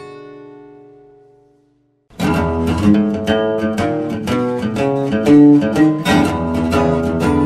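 Background music: a held chord dies away, and after a brief silence plucked guitar music starts about two seconds in, with quick notes.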